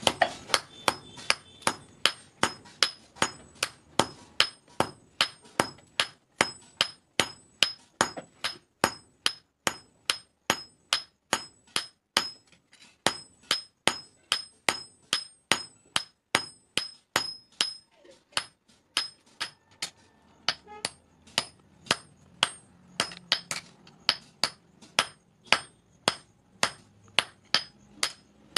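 Hammer forging a red-hot steel knife blank on an anvil: a steady run of blows, about two to three a second, each with a high metallic ring. The hammering pauses briefly about twelve seconds in, then carries on.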